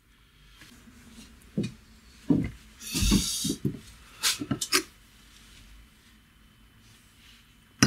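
Several clunks and knocks of a welded steel grinder stand being handled and set against its chipboard base. There is a short scrape about three seconds in and a sharp click at the very end.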